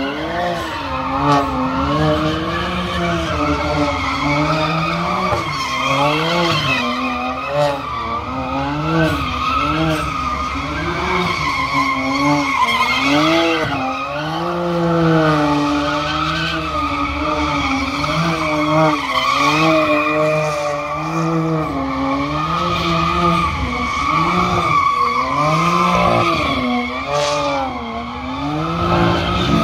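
A car doing donuts: its engine revs rise and fall over and over, about once a second, while the rear tires squeal and skid on the asphalt.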